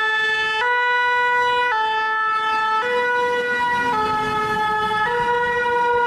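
Two-tone fire engine siren, alternating between a high and a low note about once a second.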